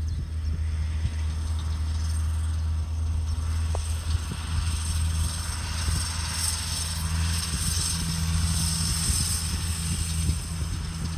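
Case MXU 130 tractor's diesel engine running steadily under load as it drives across the field spreading fertiliser with a mounted spreader. A hissing rush grows louder in the middle as the tractor comes nearer.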